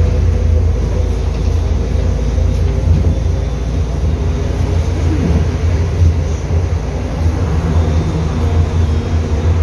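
Interior of a MAZ 105.065 city bus under way: a steady, loud low drone of the engine and running gear with road noise.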